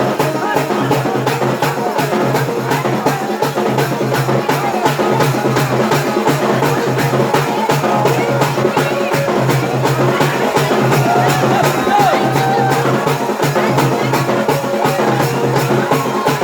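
Dance music with drums and a steady, fast percussive beat, with voices over it.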